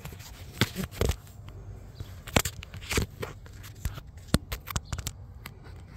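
Scattered, irregular clicks and light knocks of hand work on an engine's valvetrain, with metal parts and a gauge being handled at the rocker arms.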